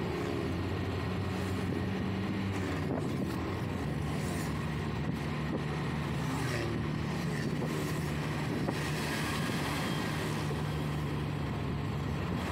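Engine hum and road noise heard from inside the cabin of a moving vehicle. The engine's steady low drone settles slightly lower about four seconds in.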